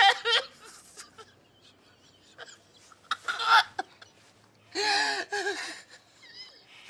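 A man sobbing and wailing: gasping sobs about three seconds in, then two drawn-out wailing cries around five seconds in.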